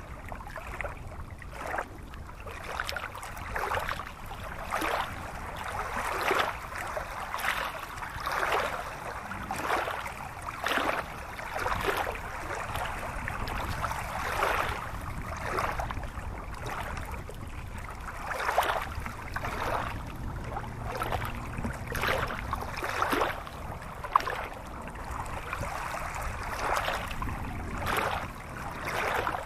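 Shallow stream running over rocks, a watery babble that swells and ebbs about once every second or so.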